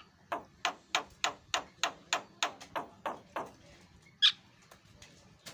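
Javan myna calling: a rapid run of about eleven harsh, downward-sweeping notes, about three a second, then one louder, higher note about four seconds in.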